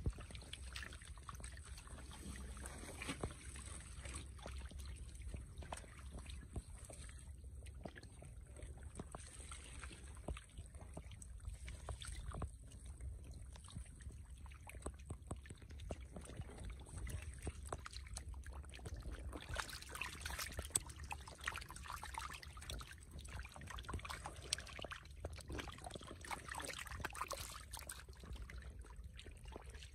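Shallow water trickling through a muddy ditch, with many small splashes and flicks from fish stranded in it. The splashing gets busier and louder about twenty seconds in and again near the end.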